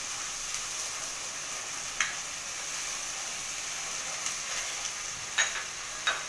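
Onions and ginger-garlic paste sizzling in hot oil in a kadhai over a high gas flame, stirred with a spatula. The spatula knocks sharply against the pan three times, once about two seconds in and twice near the end.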